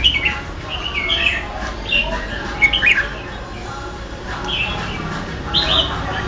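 Red-whiskered × yellow-vented bulbul hybrid singing a string of short, bright chirpy phrases that bend up and down in pitch, with a brief lull midway.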